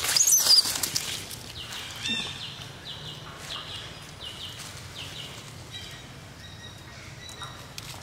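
A young macaque gives a sharp, high-pitched squeal that slides down in pitch in the first second. Short high chirps that fall in pitch follow about once a second, over a faint steady low hum.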